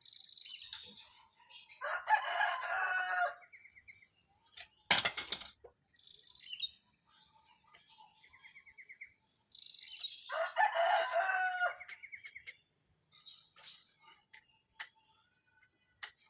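A rooster crowing twice, each crow about a second and a half long, with small birds chirping between the crows. A single sharp knock about five seconds in.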